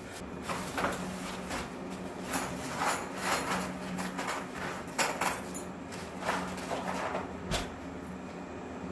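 Irregular rustling and light knocks from insulation material being handled and fitted by hand, over a faint low hum.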